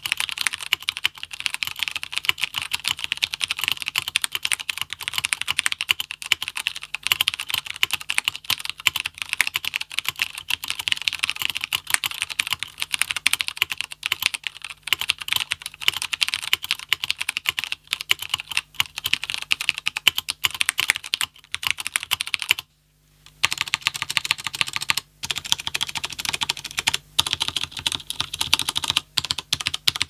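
Fast, continuous typing on a Corsair Strafe mechanical keyboard with Cherry MX Brown switches and thin double-shot ABS keycaps: a dense run of keystroke clacks, with one brief pause about three quarters of the way through.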